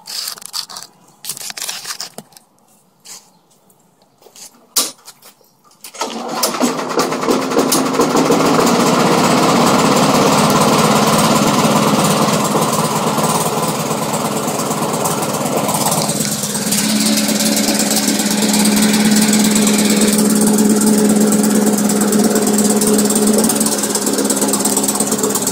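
A few knocks, then a Briggs & Stratton 500 series 158cc single-cylinder lawn mower engine starts about six seconds in and runs steadily with the throttle set to low idle, on its first run after an oil change. Its tone changes about sixteen seconds in.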